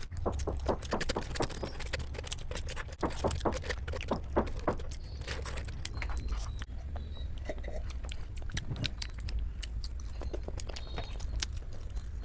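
Close-miked eating sounds: dense, irregular wet clicks and smacks of chewing food, over a steady low hum.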